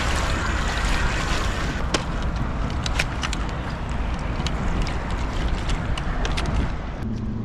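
Wind buffeting the microphone over water lapping and sloshing against a kayak hull, with scattered light ticks in the middle stretch. Near the end the wind eases and a low steady hum sets in.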